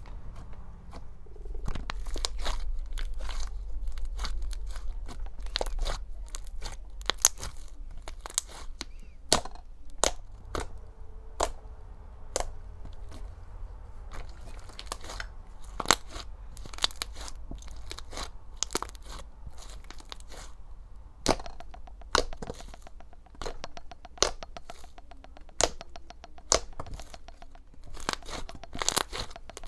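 Slime being squished and poked by hand, making an irregular run of sharp pops, clicks and crunches.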